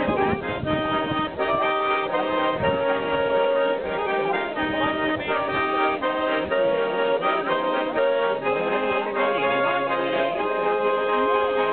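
Accordion playing a lively traditional folk tune, with held chords and melody notes changing steadily.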